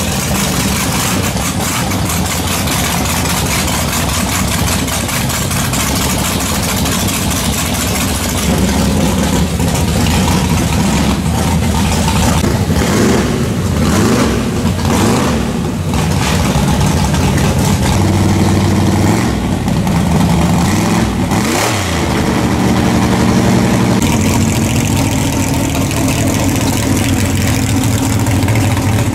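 Drag-racing car engine running loudly at idle, revved up and down several times about halfway through.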